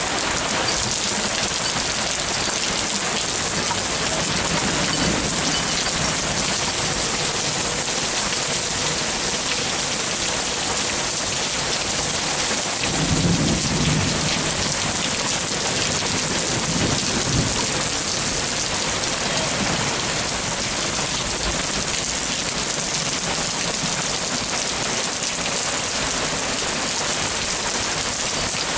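Heavy thunderstorm rain with dime-size hail falling, a steady hiss throughout. About 13 seconds in, thunder rumbles low for several seconds.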